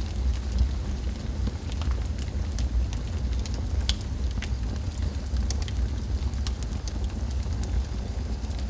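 A steady low rumble with scattered crackles and pops over it.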